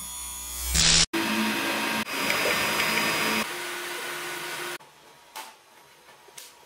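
A short rising whoosh cuts off about a second in, then an Elegoo 3D printer runs with a steady whir of fans and motor hum until it goes quiet near the middle. Two light clicks follow as the flexible build plate is handled.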